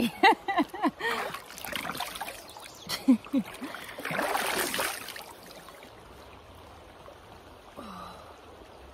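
Hands scooping and splashing river water onto a face, a dense burst of splashing about four seconds in, over the steady trickle of a shallow stream.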